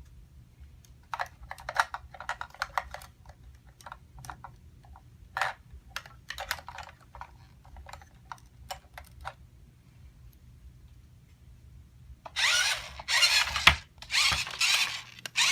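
Hard plastic toys being handled: a scatter of light clicks and taps. Then, about twelve seconds in, several louder rasps, each under a second long.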